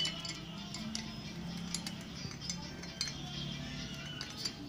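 Background music plays while a motorcycle rocker arm is fitted into an aluminium cylinder head, with a few light metal clicks and clinks.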